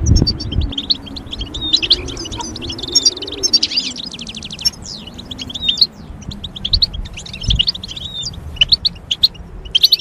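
Songbird twittering: fast runs of high chirps and trills, with a short pause a little before the middle, over a faint low wavering hum.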